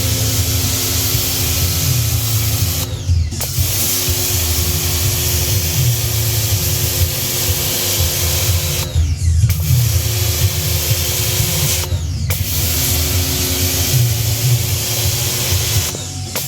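Electric pressure washer running and spraying: a steady motor hum under a loud hiss of water spray. About 3, 9 and 12 seconds in and again near the end, the spray and motor briefly dip and pick back up.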